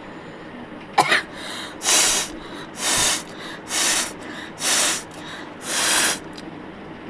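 A person blowing their nose hard: a sharp snort about a second in, then five forceful blasts of air through the nose, each about half a second long and roughly a second apart.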